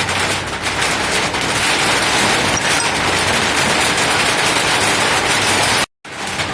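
Drizzling rain falling steadily as a dense, even patter of drops. The sound cuts out abruptly for a split second near the end.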